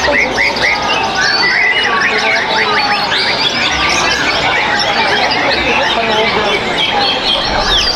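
Several caged white-rumped shamas singing at once, a dense, unbroken mix of overlapping whistles, fast chirps and rising and falling trills.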